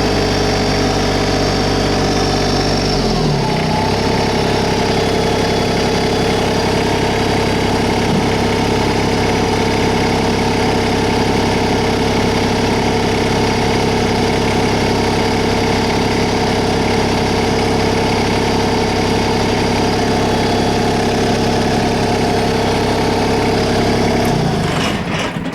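LS MT125 compact tractor's diesel engine running: it picks up speed about three seconds in, runs steadily, then shuts down just before the end.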